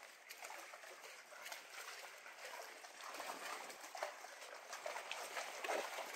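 Shallow lagoon water gently lapping and trickling under a wooden overwater dock: a faint, even wash with small irregular splashes.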